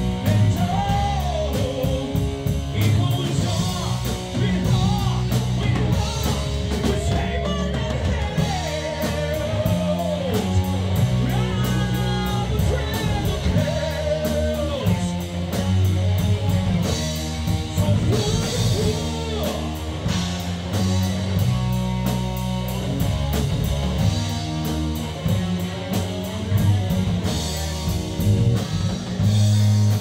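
A rock band playing live in a small rehearsal room: distorted electric guitar and drum kit, with a male singer's vocals over them.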